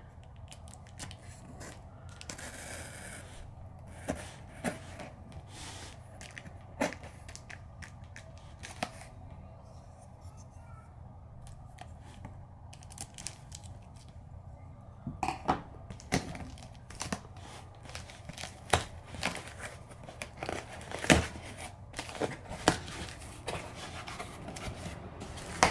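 Folding knife blade slicing through packing tape on a cardboard box, with scattered clicks and scrapes. From about 15 s in, the cut cardboard flaps are handled, with louder knocks and rustles.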